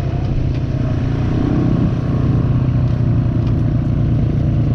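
Yamaha dirt bike engine running at low, steady revs as the bike rolls along a dirt path, heard from on the bike itself.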